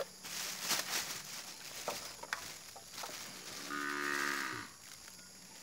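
A Bali cow mooing once, a call of about a second a little past the middle, with scattered clicks and rustling before it.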